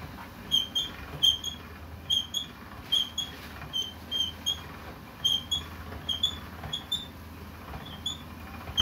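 Hand-cranked pasta roller squeaking as its crank is turned and a sheet of dough is fed through the rollers: short high squeaks, mostly in pairs, repeating about once a second.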